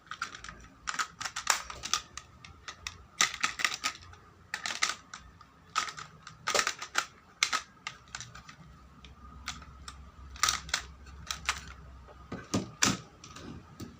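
Hard plastic toy parts clicking and clacking irregularly as Progrise Key toys are handled and slotted into a plastic DX connector stand.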